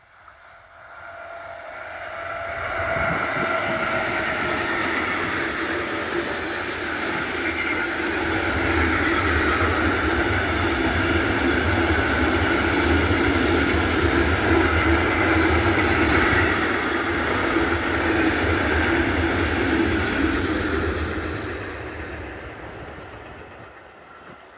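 Electric locomotive and a long train of freight tank wagons passing by on the rails: the rolling rumble and wheel noise builds over about three seconds, holds steady while the wagons go by, then fades away near the end.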